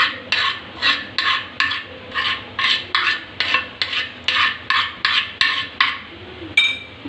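Spoon stirring the thick gur-and-ghee cough syrup, scraping the vessel in a steady rhythm of about two and a half strokes a second, then a single ringing clink near the end.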